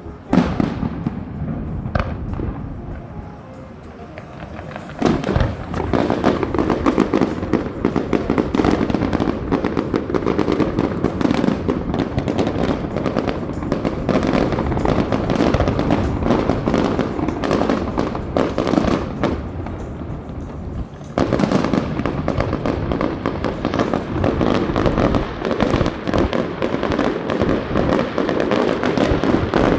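Fireworks going off: a sharp bang near the start and another about two seconds in, then from about five seconds a dense, continuous barrage of rapid crackling reports. The barrage thins briefly just before twenty seconds and comes back in full.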